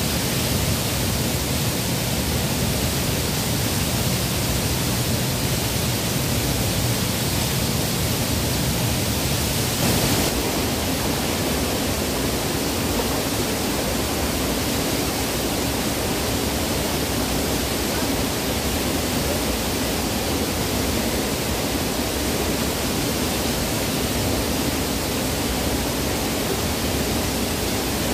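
Steady rush of water: a waterfall, then shallow river rapids, with a sudden change in the sound about a third of the way in.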